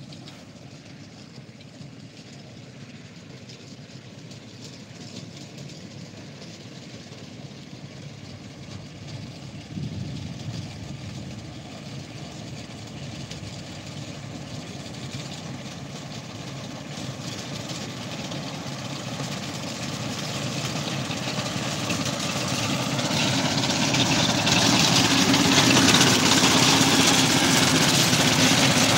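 Small engine of a fenugreek-cutting machine running steadily as the machine comes across the field, growing louder throughout, with a step up about ten seconds in.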